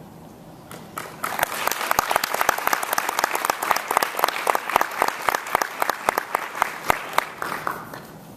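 Audience applauding: the clapping starts about a second in, builds quickly, and dies away just before the end.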